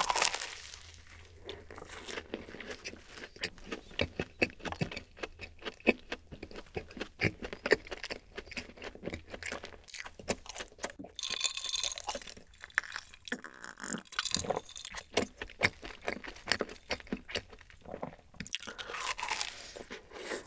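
Close-miked biting and chewing of a cream-filled dacquoise, with many small crisp crunches. It opens with a loud bite, and there is another bite near the end.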